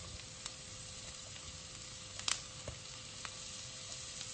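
Sliced onion, capsicum and tomato sizzling gently in a little oil in a wok while being lightly sautéed, with a few light clicks, the clearest about two seconds in.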